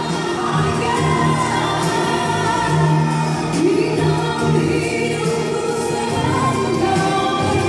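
Live concert performance of a Malay pop ballad: a band playing with sung vocals and choir-like backing, continuous and full.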